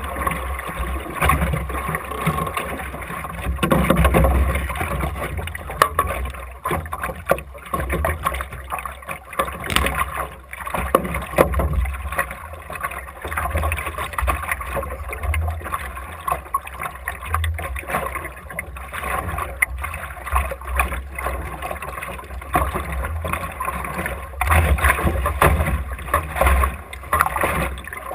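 Optimist dinghy under sail: water rushing and slapping against the hull, with wind buffeting the microphone as an uneven low rumble and scattered knocks from the boat.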